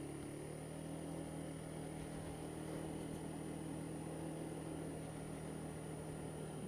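Honda Dio scooter engine running at a steady speed while riding, its note holding even throughout.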